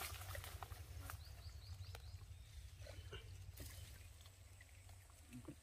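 Faint outdoor quiet with a steady low rumble, a few soft clicks, and a quick run of four short, high rising chirps about a second in.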